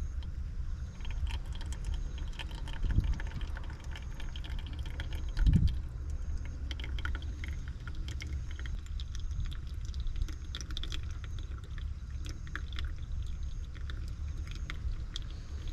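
Hot water poured in a thin stream from a drip kettle onto ground coffee in a paper filter, with faint trickling and light ticking as the grounds wet, over a steady low rumble. Two dull thumps about three and five and a half seconds in.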